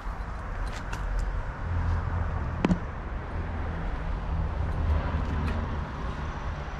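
Outdoor background noise on a car lot: a low, uneven rumble with faint clicks, and one sharp click about two and a half seconds in.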